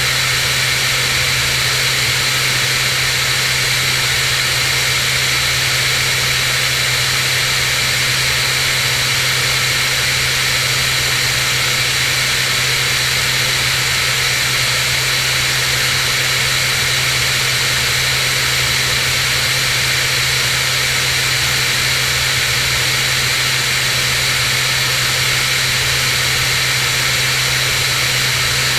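Cirrus SR22's six-cylinder piston engine and propeller droning steadily in flight, under a constant hiss of rushing air.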